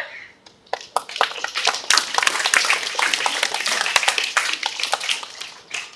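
An assembly of schoolchildren clapping in welcome. The applause starts about a second in as a dense patter of many hands and dies away near the end.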